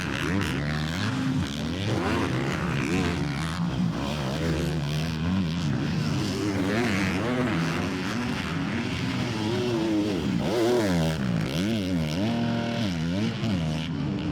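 Several motocross bikes racing, their engines' pitch rising and falling over and over as the riders throttle on and off and shift, with more than one bike heard at once.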